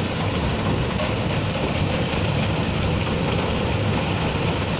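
Fishing boat's engine running steadily, under a constant patter of small clicks and splashes.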